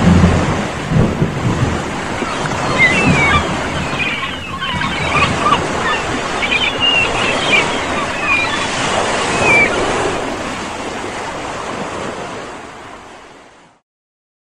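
Ocean surf: waves washing in a steady rushing noise, with short high calls over it, fading out to silence near the end.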